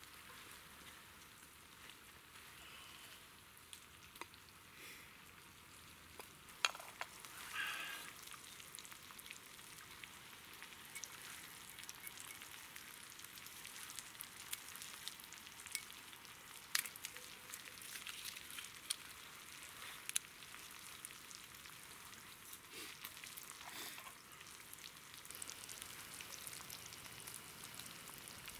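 Meat frying in a steel cooking disc over a campfire: a steady faint sizzle with scattered sharp clicks and crackles, the loudest about six and a half seconds in.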